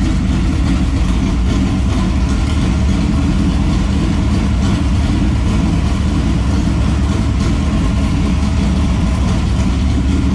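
Freshly built V8 engine of a dirt late model race car idling steadily, left running so it can be checked for leaks.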